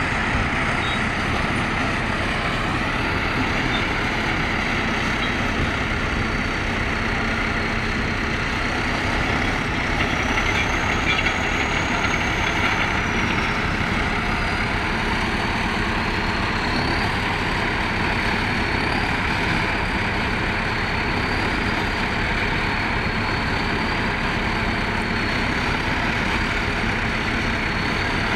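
Heavy diesel engines of a crawler bulldozer and a farm tractor running steadily. A thin high whine rises and falls about ten seconds in.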